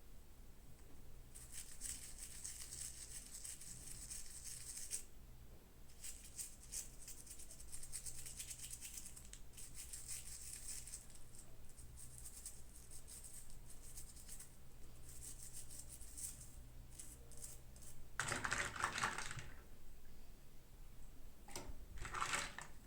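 Plastic toy packaging being handled and opened, crinkling and clicking in spells of fine crackle, with two louder rustling tears near the end.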